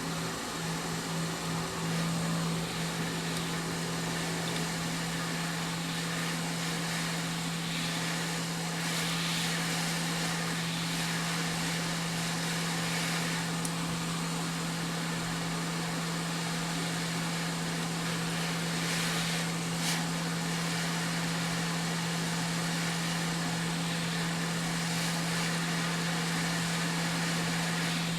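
Hot-air rework station blowing at 330 °C, airflow 60, heating a BGA eMMC memory chip to desolder it: a steady hum with an even hiss of air.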